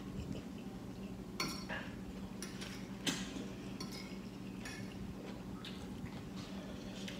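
Metal forks clinking and scraping on plates while eating spaghetti: a scattered run of short clinks over a steady low background hum.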